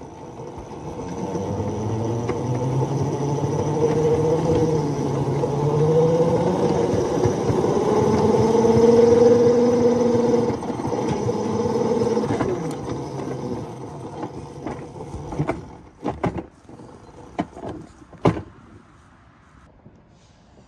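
Small rail car rolling along narrow-gauge track, its steel wheels rumbling on the rails with a wavering hum. It comes to a stop about fifteen seconds in, followed by a few sharp clunks.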